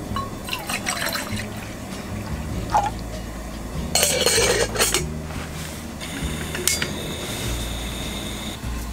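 Liquid being poured, with light clinks of glass or dishware; the loudest pour lasts about a second, roughly midway through. Soft background music plays underneath.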